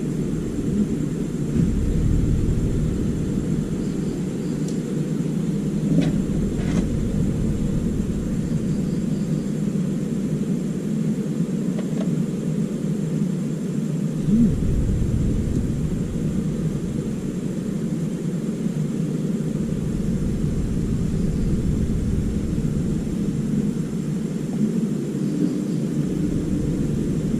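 Steady low droning rumble. Its deepest part fades out and comes back several times, and two faint clicks sound about six seconds in.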